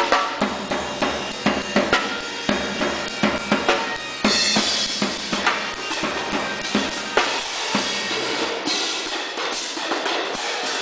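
Marching percussion playing: a run of sharp snare and bass drum strokes, then from about four seconds in, the clash and shimmering ring of hand-held crash cymbals over the drums.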